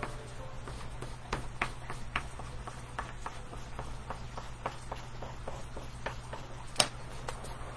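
Oil pastel stroking on black paper: short, irregular scratchy strokes a few times a second as grass is layered on, with one sharper click a little before the end, over a low steady hum.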